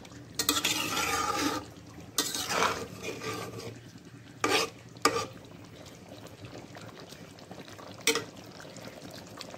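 A metal spatula stirring and scraping through beef simmering in gravy in a metal pot: several scraping strokes in the first few seconds, another near the end, over a low steady simmer.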